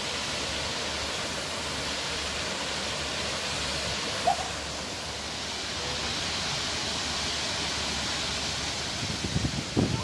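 Steady rushing of a waterfall pouring into a rock pool, with a single short high chirp about four seconds in and low rumbles near the end.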